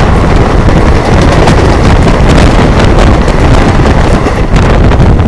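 Wind buffeting the microphone from a moving ICF-coach express train, loud and gusty over the train's low running rumble.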